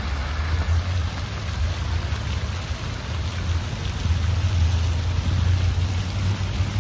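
Water splashing from small fountain jets into a shallow reflecting pool, an even hiss like rain, over a steady low rumble.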